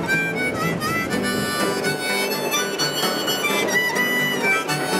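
Harmonica played in a neck rack over a strummed acoustic guitar, an instrumental break with a few notes sliding in pitch.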